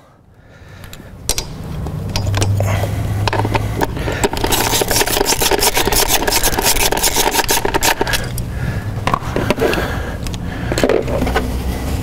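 Hand ratchet clicking rapidly as an ignition coil is unbolted from the 2018 Honda Accord's 1.5-litre turbo engine to get at the spark plug, with scraping and rubbing of the tool and parts; the clicking is densest in the middle.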